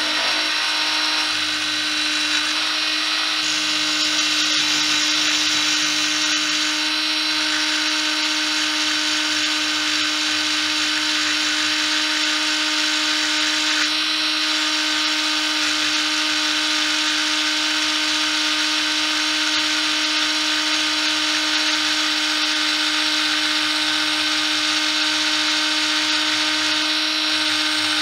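Small hobby lathe's electric motor running steadily with a whine, spinning a balsa float body while sandpaper is held against it to shape it, adding a sanding hiss.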